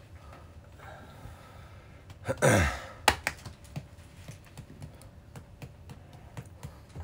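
A short vocal sound sliding down in pitch about two and a half seconds in, the loudest thing here, followed by a sharp click and then scattered light clicks and taps of small objects being handled.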